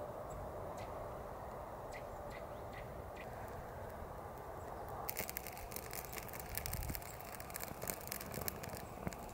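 A piece of birch bark burning in the hand. About five seconds in it starts crackling, a quick run of small sharp pops.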